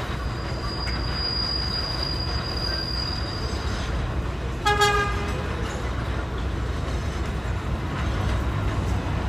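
R188 subway train approaching on an elevated curve: a steady low rumble of wheels on the rails, a thin high wheel squeal for the first few seconds, and one short horn toot about five seconds in.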